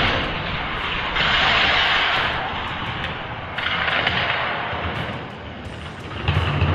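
Hot Wheels die-cast cars rolling at speed down a long race track: a loud rolling hiss that swells and fades in surges, with a few clicks and a rumble as they run.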